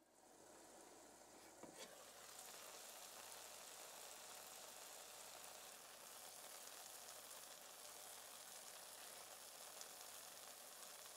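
Faint, steady sizzling from a frying pan of tomato, pepper and chickpea sauce topped with tofu "egg" rounds cooking on the heat.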